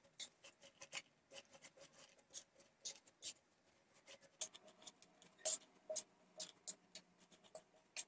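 Spoon tossing chopped raw spinach, onion and cheese in a round metal tray: faint, irregular clicks and scrapes of the spoon against the tray, with the rustle of the leaves.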